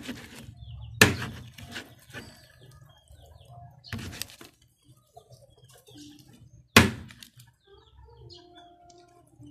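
A knife and metal tongs knocking and scraping on a plastic cutting board while cutting cooked chicken, with three sharp knocks, the loudest about two-thirds of the way through. Faint bird chirps in the background.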